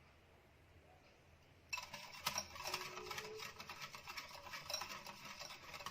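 Electric hand mixer switched on a little under two seconds in, its beaters running through cake batter in a bowl with a dense, rattling whir.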